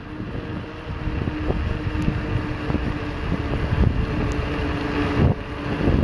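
A vehicle driving on a mountain road: a low rumble of engine, road and wind noise with scattered knocks and jolts, and a steady droning note that cuts out about five seconds in.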